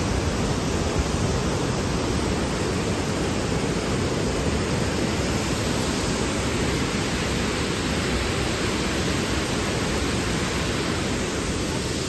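Waterfall and rapids: a steady, unbroken rush of falling and tumbling water.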